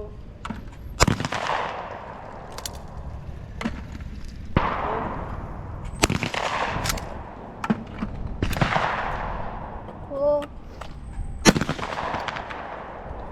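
Shotgun shots at a skeet field, about half a dozen sharp reports spread through the stretch. Each trails off in a long echoing decay; some are louder and some fainter.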